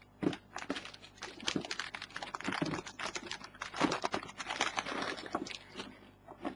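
Plastic packaging crinkling and rustling in irregular bursts, with small clicks and taps, as the motherboard is unwrapped and handled.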